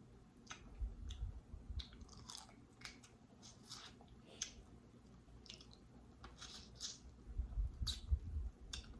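A person chewing and biting food close to the microphone, with irregular sharp mouth and food clicks.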